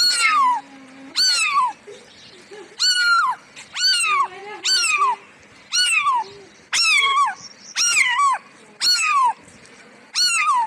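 Cat meowing over and over, about one short, high-pitched meow a second, each one falling in pitch.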